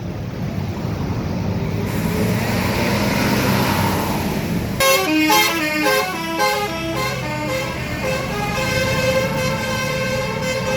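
A bus's engine running loud as it comes closer, then about halfway through its multi-tone 'telolet' musical horn plays a quick stepped melody and settles into a long held chord of several tones.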